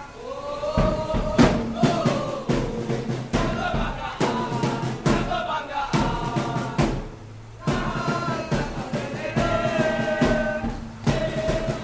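Crowd of football supporters chanting in unison to strikes of a marching bass drum. There is a short lull about seven seconds in, and then the chant and drum start again.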